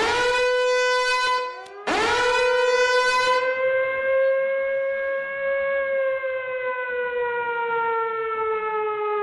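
Warning siren wailing: it sounds, cuts off briefly, winds up again with a quick rise in pitch, holds a steady tone and then slowly falls in pitch toward the end.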